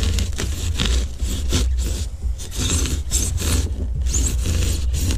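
Beaded polystyrene foam being scraped and torn out of a round access hole in a small boat's hull by hand: a run of irregular scratchy rubs and scrapes over a steady low rumble.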